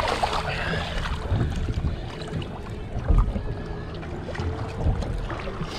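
Water splashing and slapping against the side of a fishing boat, with a splash near the start as a released cobia kicks away from the hull. Wind buffets the microphone, with scattered low thumps.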